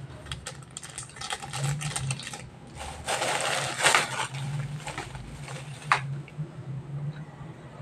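Thin plastic bag crinkling as it is picked up and moved, loudest about three to four seconds in, with a sharp tap about six seconds in as it is set down on the table. Lighter crinkles and clicks come before it, from a small foil seasoning sachet being handled.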